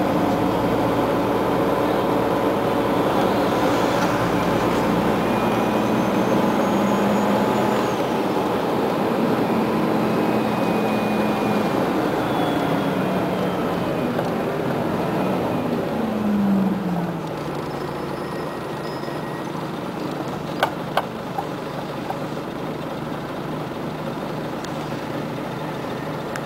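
Scania CN94UA OmniCity articulated city bus heard from inside, running at speed with engine hum and road noise. About 16 seconds in the engine note falls away quickly and the sound drops to quieter, slower running as the bus slows in traffic. Two or three sharp clicks come a few seconds later.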